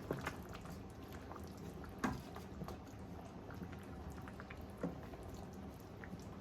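Goat stew simmering in a pot: many small scattered pops and bubbles over a low steady noise. A few louder sharp knocks stand out, at the start, about two seconds in and near five seconds in.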